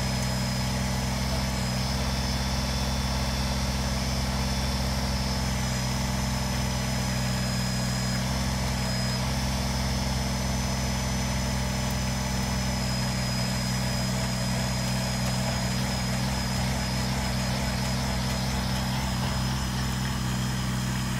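Kubota compact tractor-backhoe's diesel engine running at a steady speed while the backhoe works, an even drone with no change in pitch or level.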